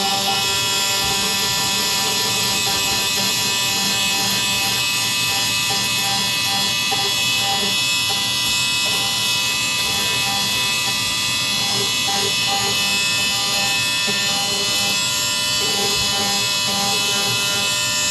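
Small electric sander running steadily against a carbon-fibre motorcycle panel: a constant motor hum with a dense sanding hiss over it, its tone wavering slightly as the pressure changes.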